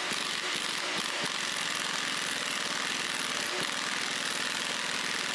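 Half-inch pneumatic impact wrench running steadily as it drives the harmonic balancer's securing bolt tight into the crankshaft.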